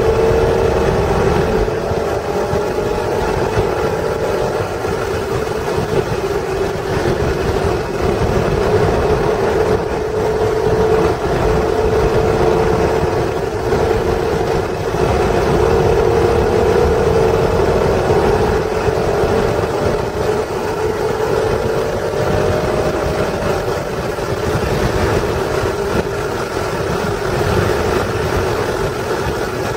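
1996 Acura NSX's mid-mounted 3.0-litre V6 heard from inside the cabin, under load through a lap, with steady tyre and road noise underneath. The engine note holds fairly level while the car eases through a corner, then climbs gradually in pitch in the second half as the car accelerates hard down a straight.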